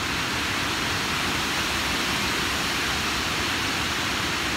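Water pouring over a reservoir outflow weir and churning into the pool below: a steady, even rush.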